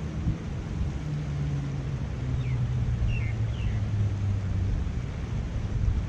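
Low engine hum of a passing vehicle, slowly dropping in pitch, over the steady rush of creek water and wind on the microphone. A few short high chirps come about halfway through.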